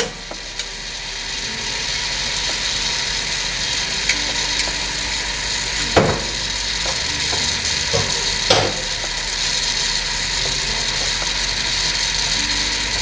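Strawberries, banana and blackberries cooking in butter and brown sugar, sizzling steadily in a pan as they caramelise, with a few sharp knocks against the pan about six and eight and a half seconds in.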